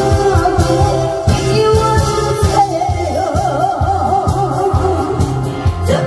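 Singing with a wavering vibrato over band music with a steady drum beat.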